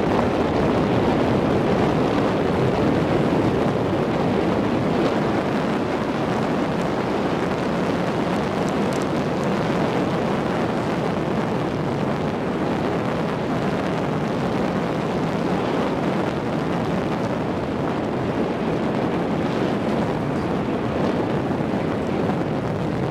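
A moving car's wind and road noise, taken with the camera held out the open side window on an unpaved road: a loud, steady rush of wind over the microphone mixed with tyre noise.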